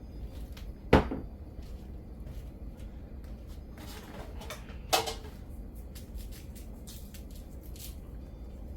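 Kitchen handling noise: two sharp knocks about four seconds apart, each with a short ring, and a scatter of light clicks and taps in between, like cupboard doors and containers being handled during food prep.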